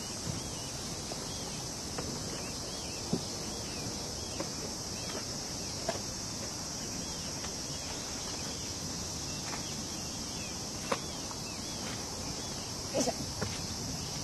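Steady high-pitched chorus of insects, with short rising-and-falling chirps repeating throughout and a few scattered soft clicks, a small cluster near the end.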